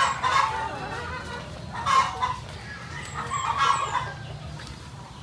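A flock of layer chickens clucking and calling, with three louder calls: about half a second in, about two seconds in, and a longer one around three and a half seconds in.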